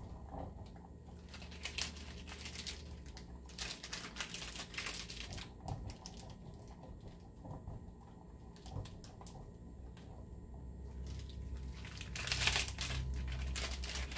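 A block of extra sharp white cheddar being grated on a metal box grater: repeated short scraping strokes in bouts with brief pauses, densest and loudest near the end.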